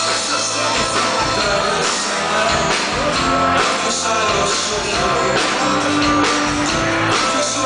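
Live band music with a male singer and strummed acoustic guitar, recorded from the audience in a club.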